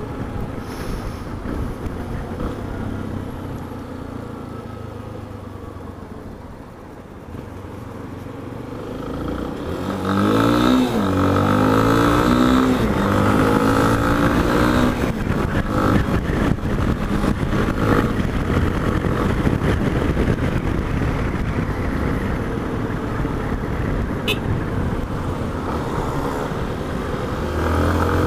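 Motorcycle engine of a Yamaha Ténéré with road and wind noise at the fork: fairly quiet, falling off in the first several seconds as it coasts. About ten seconds in, the engine revs up in a rising pitch and then runs steadily louder at speed, with another rise near the end.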